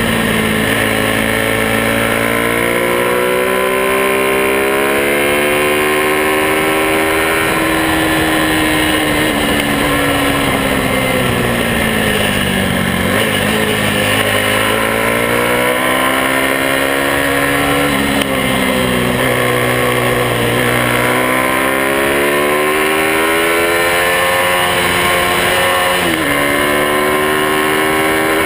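Several small motorcycle engines running together, their pitch rising and falling slowly as they rev up and ease off, with a drop in pitch about halfway and again near the end.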